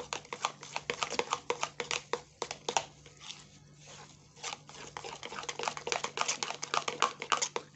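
A metal spoon stirring thick lotion cream in a bowl: rapid, irregular clicks, scrapes and squelches of the spoon working through the cream and against the bowl, with a brief lull a little before the middle.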